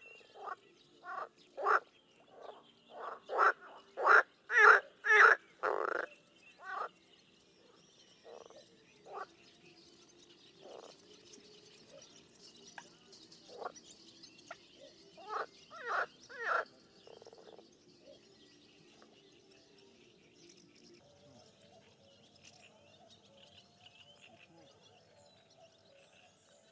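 Frogs croaking: a run of short calls at about two a second that grows louder over the first few seconds, then scattered single croaks and a second short run of four calls near the middle. Faint high chirping carries on behind.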